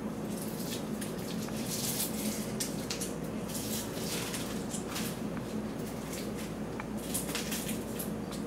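Irregular crackling rustles, strongest a couple of seconds in and again near the end, as a kitten pokes and climbs in a wicker basket of leafy plant, over a steady low hum.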